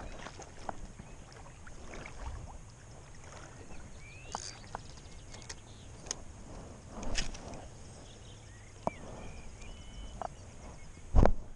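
Handling noises from a spinning rod and reel: scattered small clicks and knocks, a louder swell of noise about seven seconds in, and a loud low bump near the end.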